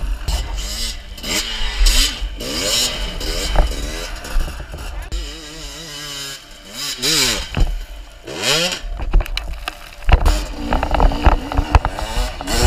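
Two-stroke 300 cc enduro motorcycle engines revving up and down in repeated rising and falling glides on a hill climb, over a heavy low rumble. Sharp knocks and clatter in the last few seconds.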